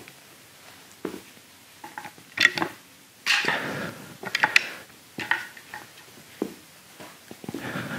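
Dumbbell knocking and clinking as it is set down on and lifted from a rubber gym floor, mixed with hands, feet and clothing scuffing on the mat. The knocks come irregularly, with the sharpest clinks about two and a half seconds in and again around four and a half seconds.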